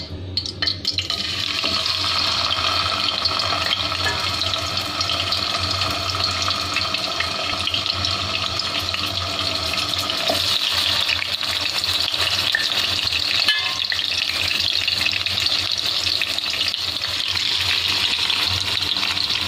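Marinated chicken pieces sizzling as they are laid into hot oil in a non-stick pan, a steady frying hiss that starts about a second in.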